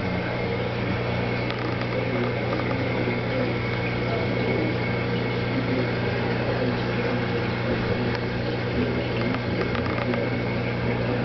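Steady low mechanical hum, unchanging throughout, with an even hiss above it.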